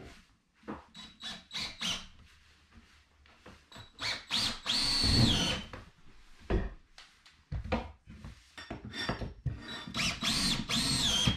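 Yellow DeWalt cordless drill running into softwood timber in two bursts of about a second and a half, the motor whine dropping in pitch as each run ends. Between the runs there are scattered knocks and clicks of timber being handled.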